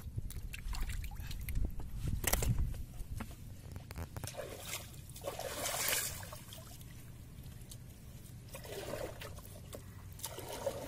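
Water trickling and dripping as a wet fishing net is handled by hand over the side of a wooden boat in shallow water, with a few small knocks and light splashes.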